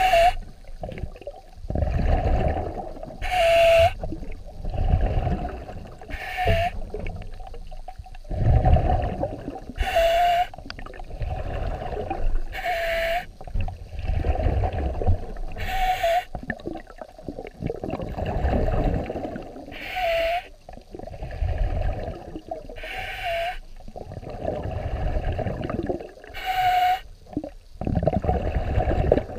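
A swimmer's breathing, heard underwater: a hissing breath about every three seconds, each carrying a short dipping whistle, over low rumbling water noise.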